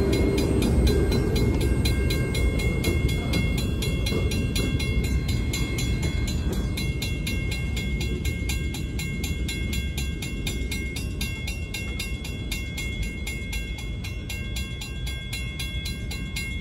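Western-Cullen-Hayes mechanical crossing bell ringing steadily with rapid, evenly spaced strikes, over the low rumble of the end of a freight train rolling past, which fades as the train moves away.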